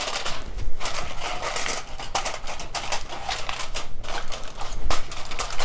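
Aluminium foil crinkling and crackling as it is pressed and crimped around the rim of a pudding pan, in a dense run of quick crackles.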